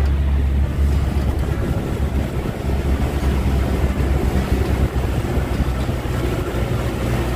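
A motorized wooden boat's engine running steadily underway, with wind buffeting the microphone and water rushing past the hull.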